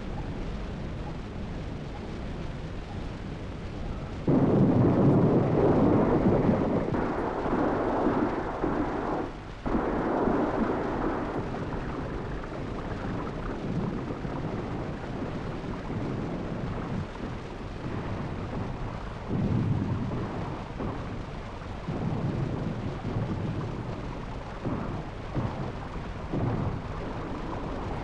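Muffled, rumbling noise on an old archival film soundtrack, with no clear single source. It turns louder about four seconds in, cuts off abruptly some five seconds later, then continues more quietly in uneven swells.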